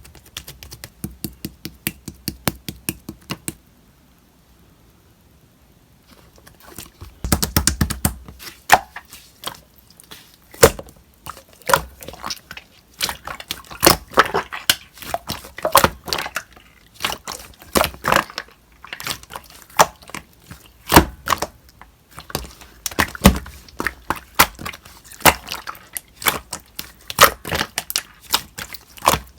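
Slime being pressed, poked and stretched by hand, giving rapid clicking, popping and crackling sounds. The clicks stop for about two seconds a few seconds in, then resume densely.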